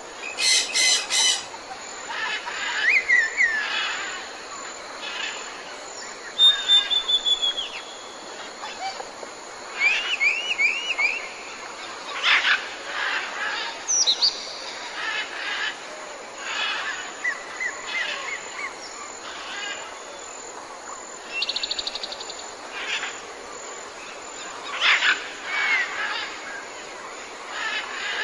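Jungle ambience: several different kinds of birds call in turn, a short chirp, whistle or trill every second or two, over a steady background hiss. The calls include a quick run of three rising chirps and a rapid pulsed call.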